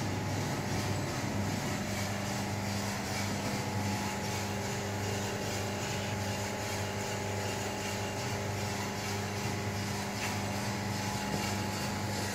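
Akaneks AKS 10 drum coffee roaster running: a steady hum of its electric motors and fans, with a few constant tones held throughout.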